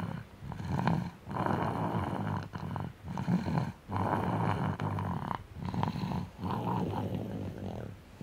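Snoring in sleep: rough, rattling breaths repeating about every second, each with a low rumble, in a steady rhythm.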